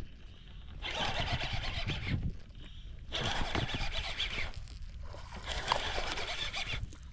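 Fishing reel being wound in three spurts while a hooked largemouth bass is hauled in.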